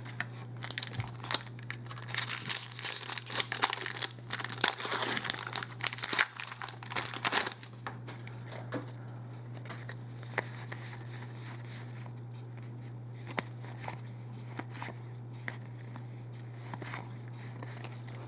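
Foil Magic: The Gathering booster pack wrapper being torn open and crinkled for several seconds, then a few soft clicks of cards being handled, over a steady low hum.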